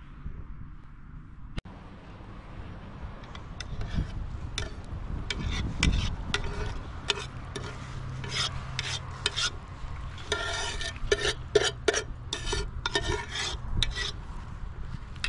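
Rice being washed by hand in water in a stainless steel bowl: quick scratchy strokes of the hand stirring and rubbing the grains against the metal, starting a second or two in and getting denser about two-thirds of the way through.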